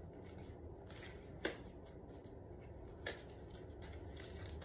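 Small cardboard lipstick-crayon box being handled and opened by hand: faint rubbing with two light clicks, about a second and a half in and again about three seconds in.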